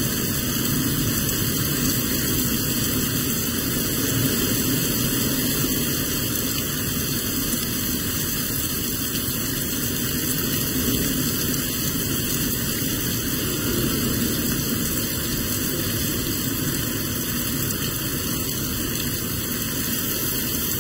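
Strong wind and heavy rain of a severe supercell thunderstorm, a steady, loud rushing noise that hardly changes.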